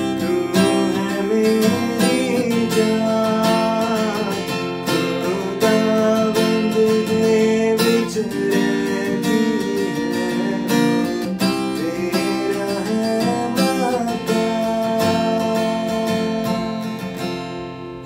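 Acoustic guitar, capoed, strummed in a steady rhythm as accompaniment to a man singing a song. The playing and voice fade out over the last couple of seconds as the song ends.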